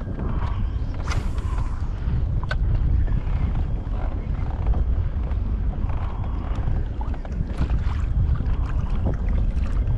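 Wind rumbling steadily on the microphone, with scattered small clicks and light water sounds around a kayak.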